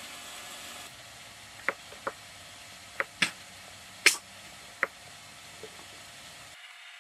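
Dry branches and twigs from a firewood pile cracking and knocking together as they are handled: six sharp snaps over a few seconds, the loudest about four seconds in, over a steady hiss.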